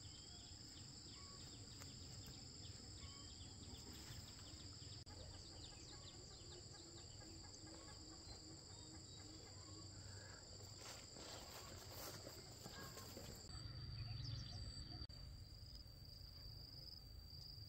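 Faint, steady high-pitched insect chorus of two overlapping trills; the higher one stops about three-quarters of the way through, leaving the lower one, with a few faint knocks shortly before.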